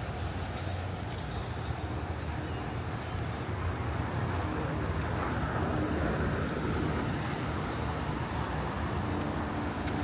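Outdoor street ambience: a steady rumble of passing road traffic with faint voices mixed in.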